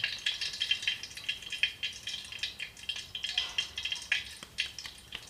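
Soft, oiled wheat dough squelching and clicking under the fingers as it is kneaded and pinched into small balls in a steel bowl. The sound is a quick, uneven run of small sticky, wet clicks.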